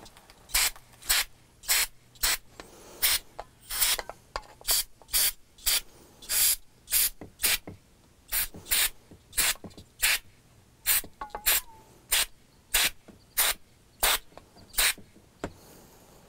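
Aerosol spray can fired in short hissing bursts, about two a second, with its nozzle against a motorcycle wheel bearing to flush the old grease out of it. The bursts stop shortly before the end.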